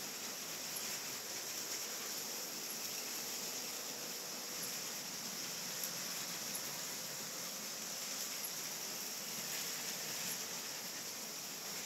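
Steady hiss with scattered faint clicks from LEGO trains running on plastic track.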